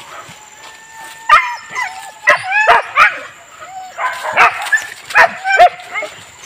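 Leashed boar-hunting dogs: a thin whine at first, then a quick run of sharp barks and yips from about a second in, about a dozen of them.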